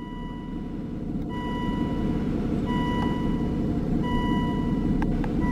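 Aston Martin Vanquish's reverse-gear warning beep from its cabin electronics, a single high beep repeating about every second and a half, over the low steady idle of the car's V12 engine.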